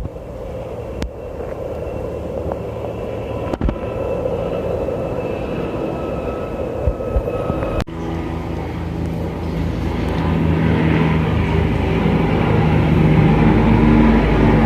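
Helicopters in flight: a more distant helicopter with a faint turbine whine, then, after a cut about eight seconds in, a police Eurocopter EC145 with a louder rotor and engine sound that grows steadily as it comes closer.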